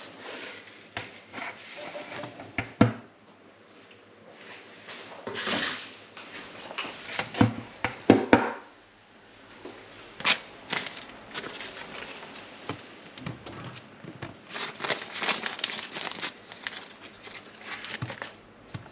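Irregular rustling and crinkling with scattered short knocks, the sharpest about three seconds in and twice about eight seconds in.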